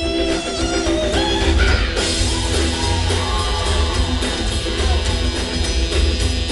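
Live rockabilly/R&B band playing an instrumental passage: saxophone, electric guitar and upright bass over drums, with the whole band and cymbals coming in fuller about two seconds in.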